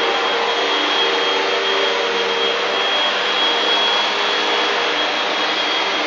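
Hoover vacuum cleaner running steadily, a high whine over its motor hum.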